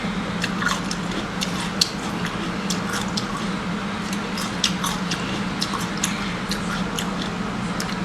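Close-up eating of seafood: wet chewing, biting and mouth clicks, many short irregular snaps, over a steady low hum.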